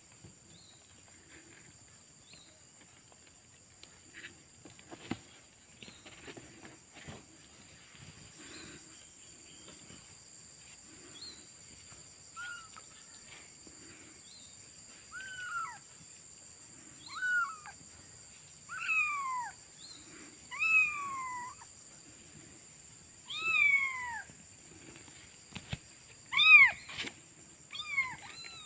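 Young kittens mewing: about seven short, high-pitched mews, each falling in pitch, coming every second or two from about halfway through. Before them there is only faint rustling and handling.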